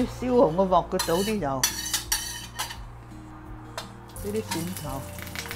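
Metal spatula scraping and clinking against a stainless steel wok, with a light sizzle of hot oil as garlic and ginger go in. A brief pitched sound sits in the first second and a half.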